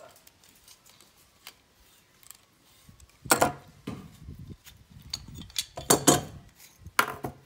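Metal hand tools, a pipe wrench and water-pump pliers, clicking and scraping as they grip and twist apart a small metal munition casing, with louder clanks about three seconds in, around six seconds, and near the end.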